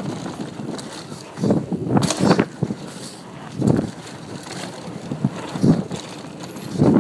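Mountain bike rolling down a dirt trail: the rush of tyres on dirt under wind buffeting the microphone, which swells in irregular loud gusts every second or two.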